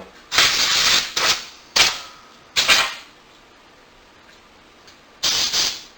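Four short blasts of hiss from a can of compressed air being sprayed into a space heater's fan motor to blow out dust. The first blast lasts about a second, the next two are brief, and the last comes near the end.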